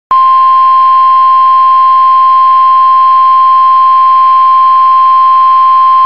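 NOAA Weather Radio warning alarm tone: a single loud, steady tone near 1 kHz, held unbroken. It is the alert signal that comes before a severe weather warning is read out.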